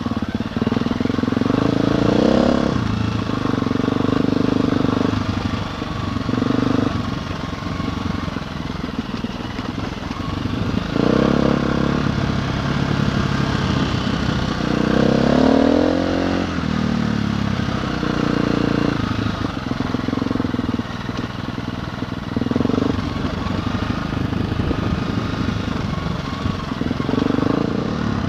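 Single-cylinder engine of a KTM enduro motorcycle under way on a gravel track, its pitch rising and falling with the throttle, with a few marked rev rises about 2, 11, 15 and 27 seconds in.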